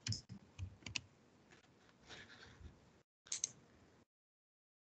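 Faint, scattered computer keyboard and mouse clicks: a few taps in the first second and a quick pair about three and a half seconds in.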